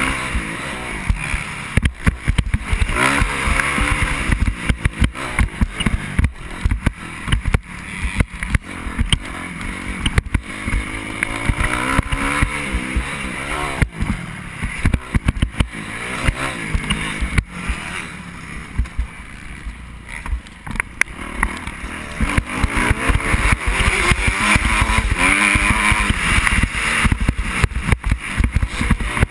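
Dirt bike engine revving up and dropping back again and again as it is ridden around a motocross track, picked up by a bike-mounted action camera, with frequent sharp knocks and wind buffeting on the microphone.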